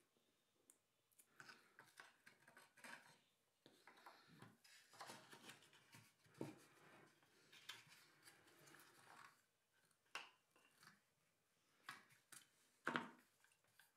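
Faint handling sounds of an electronic speed controller and its wires being pushed into a small balsa fuselage compartment: light rustles and scattered small clicks, the sharpest near the end.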